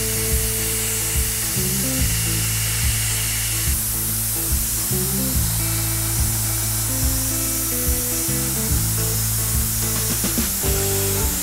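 Cold Jet dry ice blaster jet hissing steadily as it blasts pellets at bare aircraft metal, heard under background music with a steady beat.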